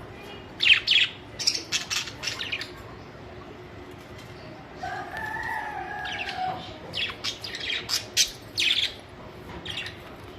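Budgerigars chirping in quick clusters of short, sharp, high calls, with a softer warbling chatter about halfway through.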